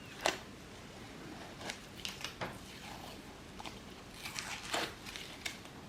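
Scattered light taps and clicks, about eight in irregular succession, from wooden crown-molding trim pieces being handled and fitted together.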